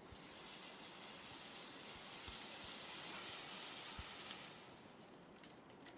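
Wind rustling through the leaves of the rainforest canopy, a soft hiss that swells over the first three seconds and dies away after about four and a half.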